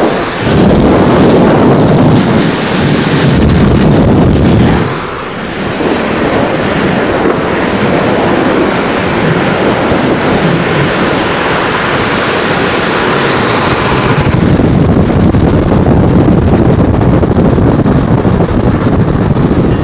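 Wind rushing over the microphone and the roar of skateboard wheels rolling on asphalt at downhill speed, a loud, continuous rush that dips briefly about five seconds in.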